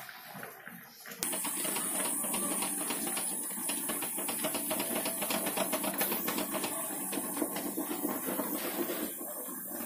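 Pressure cooker whistling: steam hissing out under the rattling weight. It starts suddenly about a second in and dies down near the end, a sign that the mutton curry inside has come up to pressure.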